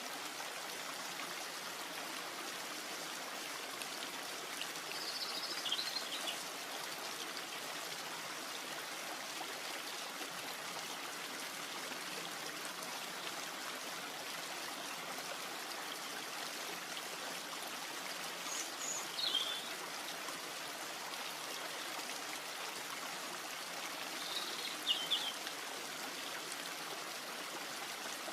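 Steady rush of water, with a bird chirping briefly three times above it.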